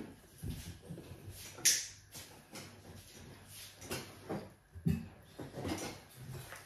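Scattered light clicks and taps of tableware, cutlery and plates on a table during a meal, with one sharper click about a second and a half in.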